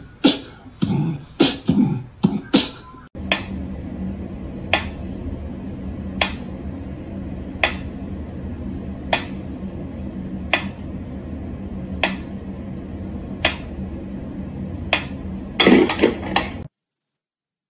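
Mechanical pyramid metronome ticking slowly and evenly, about one tick every second and a half, over a steady low hum. It follows a few seconds of loud, irregular sharp sounds. Near the end there is a short louder burst of noise, then the sound cuts out.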